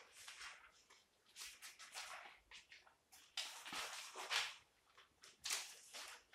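Loose sheets of paper rustling and crackling as a stack of pages is handled and leafed through, in faint, irregular short bursts.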